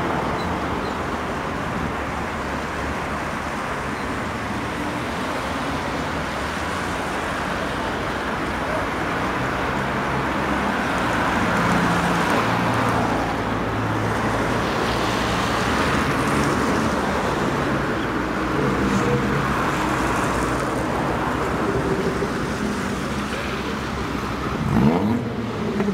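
City street traffic: cars driving past, a steady wash of engine and tyre noise swelling as vehicles go by. A short, loud rising sound cuts in near the end.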